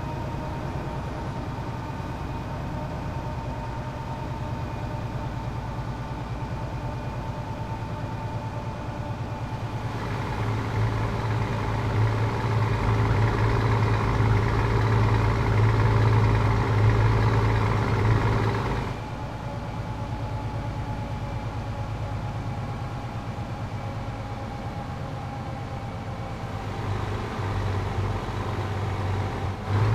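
Scania 500S truck's six-cylinder diesel running through a straight-through exhaust, with a deep steady rumble. About ten seconds in it turns louder and harsher for roughly nine seconds, then drops back suddenly to a steady run.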